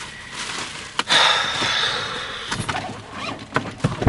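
Thin plastic shopping bag rustling and crinkling as it is handled. A sharp click about a second in is followed by the loudest stretch of rustling, about a second and a half long, then smaller crinkles.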